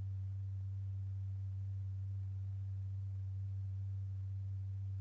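Steady low pure tone with a faint overtone, unchanging in pitch and loudness: the sine-wave tone from the oscillator and loudspeaker that vibrates a stretched paper diaphragm strewn with lycopodium powder.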